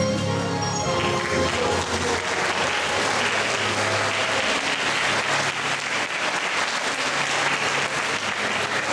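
Audience applauding, the clapping building about a second in and carrying on steadily, over quieter background music.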